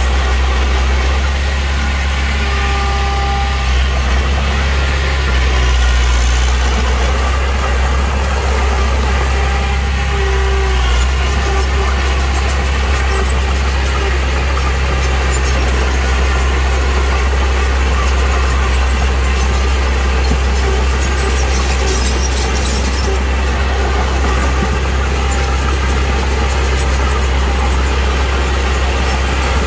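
Heavy diesel construction machinery running steadily with a deep engine drone. A few short squeals come in early on and again about ten seconds in.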